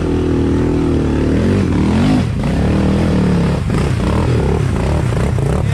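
Off-road vehicle engine revving under load, its pitch rising to a peak about two seconds in, then dropping back and running on steadily.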